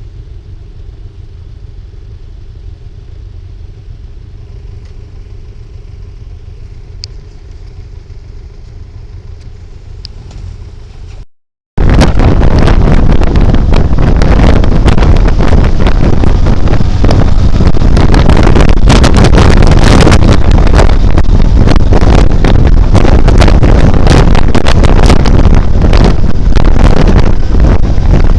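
Motorcycle engine idling with a steady low rumble. About eleven seconds in, a cut to riding: loud wind buffeting on the microphone over the motorcycle's engine, at full scale.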